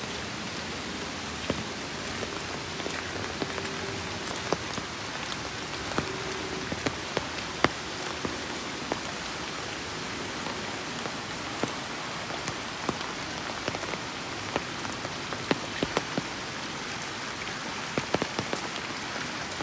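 Steady rain falling, with individual drops landing as sharp ticks at irregular moments throughout.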